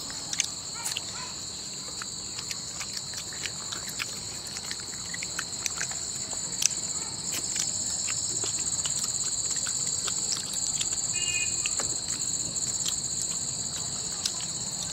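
Insect chorus, a steady high trill in two pitches, with scattered small clicks and smacks of people eating with their hands.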